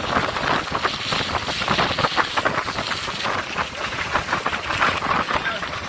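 Noise of a moving vehicle heard from inside: a steady rush of wind and road noise with fast, irregular crackling.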